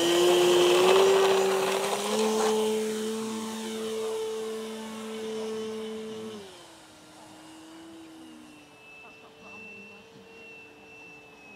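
Electric radio-controlled model plane's motor and propeller whining steadily at high power as it takes off and climbs away. The pitch steps up about two seconds in, then drops about halfway through, and the whine grows fainter as the plane flies off.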